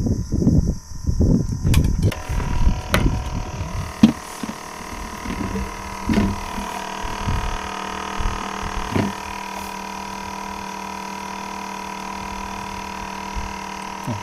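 Low, gusty rumbling buffets for about the first two seconds, then a steady hum with a few scattered knocks.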